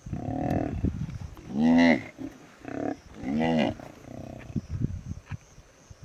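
Distress calls of a young hippo: about five short, moaning, moo-like calls, each rising then falling in pitch. The loudest come about two seconds and three and a half seconds in.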